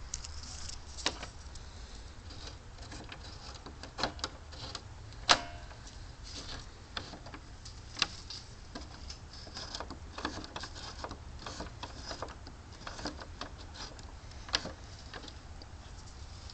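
Scattered metallic clicks and knocks from a Volkswagen hood latch being pulled and worked by hand, the sharpest about five seconds in, over a low steady hum.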